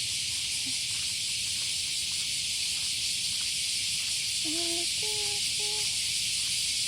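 Cicadas droning: a steady, even, high hiss of a summer cicada chorus that does not let up. A couple of short pitched vocal sounds come in about two-thirds of the way through.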